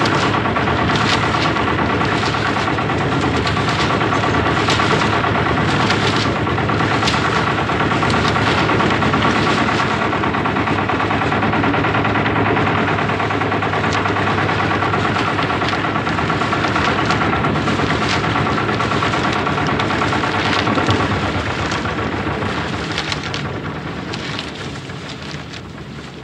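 Mechanically fed cement mixer running: a steady machine hum with irregular knocks and clatters, fading away over the last few seconds.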